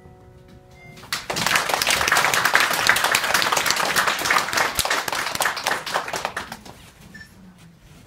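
The last note of the music dies away, then a small audience applauds: clapping breaks out about a second in, holds for about five seconds and fades out near the end.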